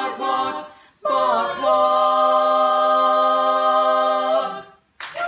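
Women's barbershop quartet singing a cappella in close four-part harmony: a short phrase, a brief break, then a long held final chord of about three and a half seconds that stops cleanly. Applause breaks out at the very end.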